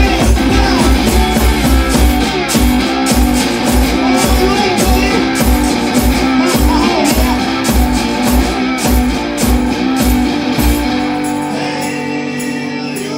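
Blues-style music led by guitar over a steady thumping beat, about three beats a second. The beat drops out about eleven seconds in, and sustained notes carry on without it.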